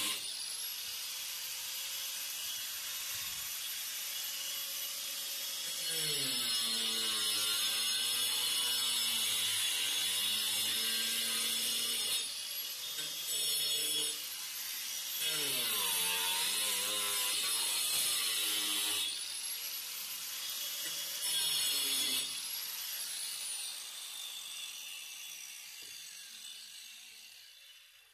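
Electric angle grinder with a cutting disc, whining at high speed and cutting into a PVC drain pipe. Its pitch sags and wavers while the disc is biting into the plastic. It is switched on again several times and spins down, fading over the last few seconds.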